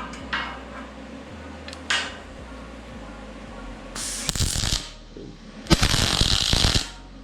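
MIG spool gun arc crackling in two short bursts, tack welds on aluminum with 4043 wire at 19 volts, with a couple of small clicks before them. The arc struggles to fuse the metal at first, a sign the setting runs a little hot.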